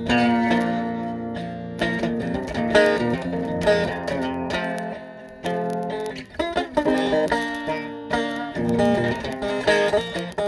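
A guitar being played, plucked notes and chords that ring on. The playing eases off briefly about halfway through.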